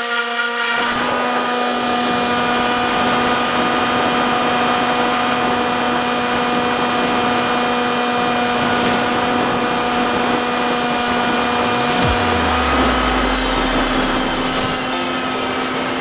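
Electric motor and propeller of a Skysurfer RC foam plane running at a steady whine, heard from the camera on board, with wind rushing over the microphone.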